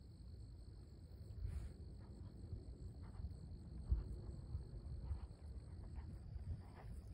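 A horse's hooves thudding dully on sand arena footing at a trot, growing louder as the horse comes closer. A faint steady high tone runs underneath.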